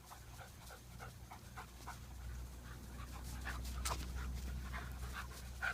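A puppy panting in quick, short breaths, about three a second.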